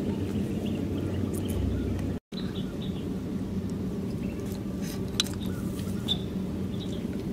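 A steady low rumble with a faint hum, over which come a few light clicks and taps of snail shells being handled and set down on banana leaves. The sound cuts out for a moment about two seconds in.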